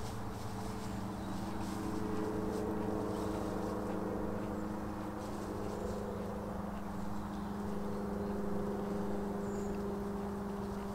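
A steady engine drone with a few even low tones, holding level throughout, with a few faint clicks over it.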